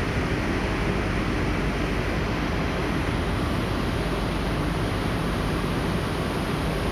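OLI MVE 1200/075 three-phase electric vibrator motor (750 rpm) running, a steady low noisy hum that does not change.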